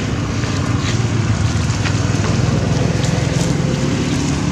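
Steady low drone of a motor, with wind hiss on the microphone.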